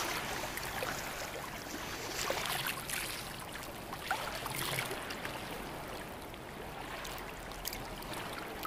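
Shallow sea water lapping gently at a sandy shore, a steady wash with scattered small splashes.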